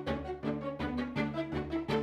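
Music: fast, rhythmic string music with repeated notes about four times a second over a held low bass.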